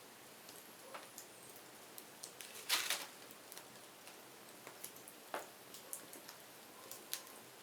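Wood fire crackling: irregular pops and snaps over a soft hiss, with a louder burst of crackling about three seconds in and another sharp pop a little past five seconds.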